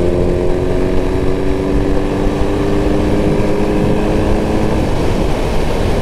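Wind rushing over a microphone inside a Bell Bullitt helmet on a motorcycle at about 55 mph, with the motorcycle engine's steady hum underneath. The engine tone rises slightly in pitch and drops out about five seconds in, leaving the wind noise.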